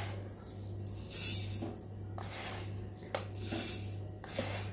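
Sugar poured from a small bowl into a steel mixer-grinder jar and scraped out with a plastic spatula: a soft hiss of falling granules with light taps and clicks on the metal, loudest about a second in.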